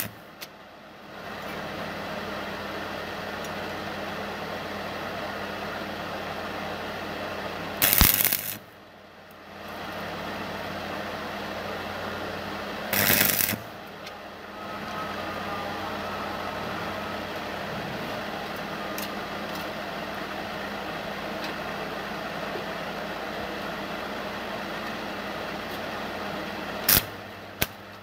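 Stick (arc) welding: the electrode arc gives a steady crackling sizzle over a low hum. A few brief, much louder bursts and short breaks in the crackle come about 8, 13 and 27 seconds in.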